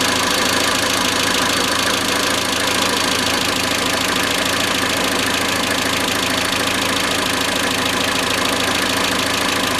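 Iran Khodro Samand's 1.6-litre 16-valve TU5JP4 four-cylinder engine idling steadily with a rapid, even metallic knocking.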